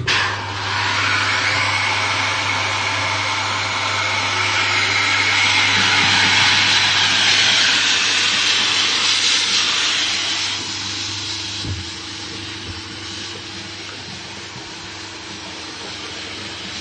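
Drum filter running its backwash cycle: the rinse pump starts suddenly, with a loud hiss of spray jets over a steady motor hum, for about ten seconds. The pump then cuts out with a click, leaving a quieter steady running and water sound.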